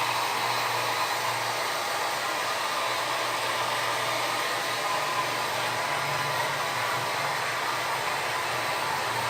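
Handheld hair dryer blowing steadily while drying a child's hair, a constant rush of air with a low hum from its motor.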